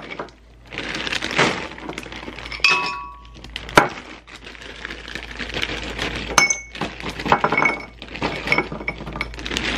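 Frozen fruit chunks dropping into a glass blender jar, clinking and thunking irregularly with short glassy rings, along with the crinkling of the plastic freezer bag they are poured from.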